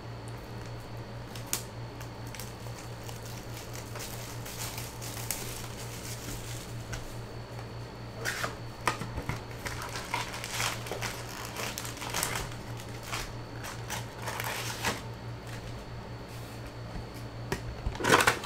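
A cardboard box of cellophane-wrapped Panini Mosaic card packs opened by hand and the packs pulled out and stacked: scattered rustling, crinkling and light knocks, with a louder burst of crinkling near the end. A steady low hum runs underneath.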